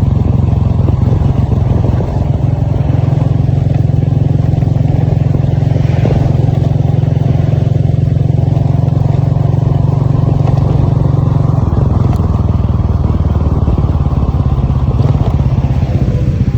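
A motor vehicle's engine running steadily under way, a loud low drone with no break.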